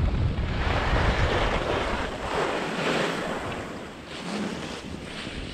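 Skis running and carving on groomed snow, the edges hissing and scraping as the hiss swells and fades through two turns, with wind rumbling on the microphone in the first couple of seconds.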